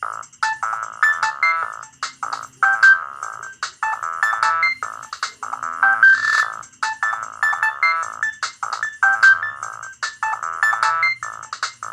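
Nokia 6010 mobile phone playing one of its ringtones: a fast electronic melody of short pitched notes that starts abruptly and repeats its phrase about halfway through.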